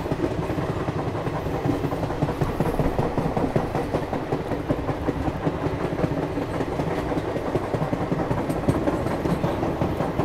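Passenger train running along the line, heard from on board at an open doorway: a steady rumble and clatter of the coach's wheels on the track.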